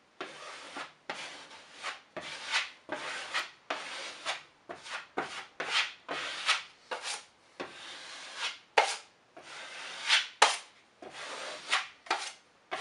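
Steel drywall taping knife scraping joint compound across a drywall patch in short repeated strokes, about one a second, each stroke ending in a sharper scrape.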